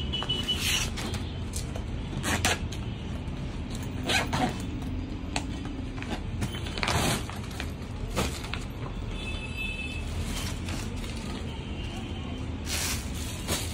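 Clear plastic clothing packets crinkling and rustling in scattered short crackles as they are handled and opened, over a steady low background rumble.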